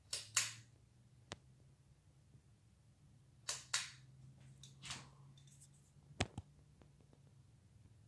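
Craftmade Copeland ceiling fan motor humming faintly and steadily, with scattered sharp clicks and brief rustles over it, the sharpest click about six seconds in.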